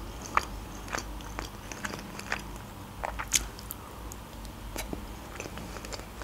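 Close-miked chewing and biting of chicken pieces in a sticky sweet-and-sour sauce: irregular soft mouth clicks and smacks, a few each second, with a sharper one a little past the middle.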